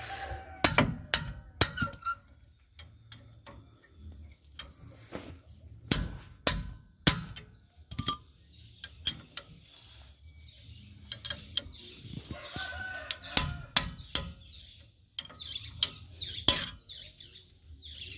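Open-end wrench clinking and knocking against the axle-shaft flange nuts on a truck's rear hub as they are loosened: a series of irregular sharp metallic clicks. A rooster crows in the background about two-thirds of the way through.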